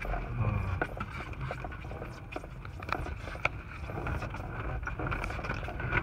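Gusty wind buffeting a small parked airplane's cabin as a low rumble, with scattered sharp ticks and knocks on the airframe and a faint steady high whine underneath.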